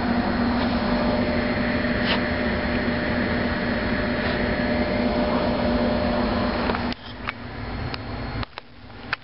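Steady machine hum with a low drone tone, which cuts off abruptly about seven seconds in and gives way to a quieter hiss with a few sharp clicks.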